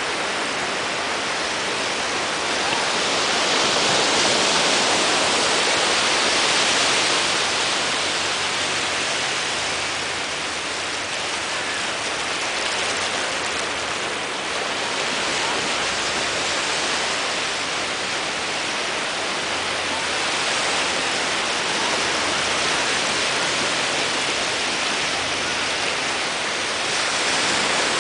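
Small ocean waves breaking and washing up a sandy shore: a steady rushing hiss that swells louder and eases off every several seconds.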